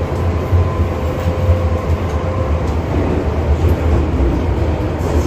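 Inside an MTR Island Line M-Train subway car running between stations: a steady low rumble of the wheels on the rails, with a faint steady whine that fades out about halfway through.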